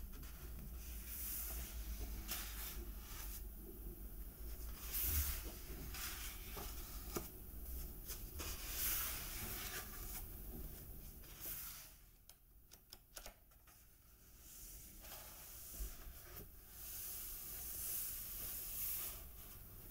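Hands sliding and brushing over the glossy pages of a hardcover comic album, paper swishing and rustling in soft strokes, with a page turned partway through. The sound drops quieter for a couple of seconds past the middle.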